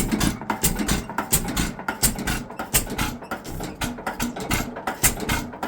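6 HP Fairbanks Morse single-cylinder hit-and-miss engine running on a Model T buzz coil, its straight-piped exhaust popping in a quick, slightly uneven string of sharp pops, with a miss every once in a while.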